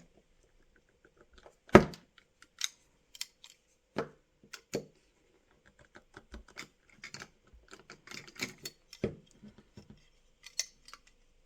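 A tack remover levering a wheel off a die-cast model bus's axle: small metal and plastic clicks and taps, with one sharp, loud click about two seconds in, then lighter scattered clicks.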